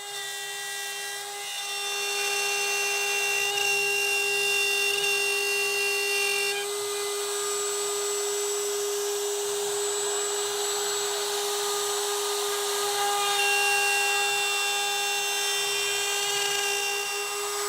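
CNC router spindle running at a steady high pitch as its bit cuts a wooden board on the final pass. The cutting noise gets louder about two seconds in, changes near the middle and swells again later as the bit moves up and down to leave small holding tabs.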